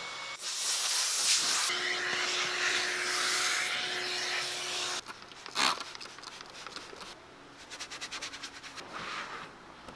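Shop vacuum hose sucking over the windshield cowl grille with a loud, steady hiss that cuts off about halfway through. Then a short burst, and a detailing brush scrubbing the plastic engine cover in quick strokes.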